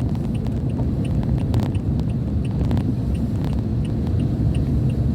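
Steady low rumble of a moving vehicle, its engine and road noise, with faint evenly spaced ticking about three times a second and a few scattered clicks.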